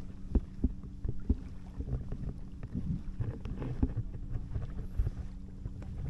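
Sea water lapping at a pier, with irregular small knocks and splashes, over a steady low engine hum from a boat.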